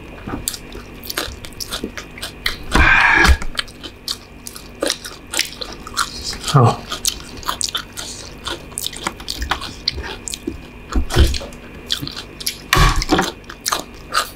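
A person chewing a mouthful of stir-fried instant noodles close to the microphone, with many small wet mouth clicks. There are two louder hissing bursts, about three seconds in and near the end, and a short falling murmur in the middle.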